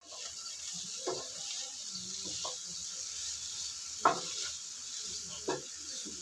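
Vegetables and vermicelli sizzling in a hot frying pan as a wooden spatula stirs and mixes them, with a few short scrapes against the pan, the loudest about four seconds in.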